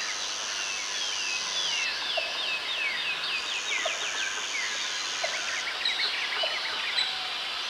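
Scheppach MBS1100 portable metal-cutting bandsaw cutting a small steel bar fed by hand. It gives a high, warbling squeal that chirps up and down in pitch, with a steadier very high whine that comes and goes and a few light ticks.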